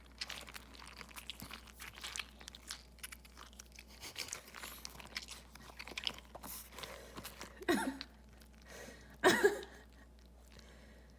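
Small filling beads of a cut-open squishy duck toy crackling and crunching as the toy is squeezed and worked through by hand, with two louder noises late on.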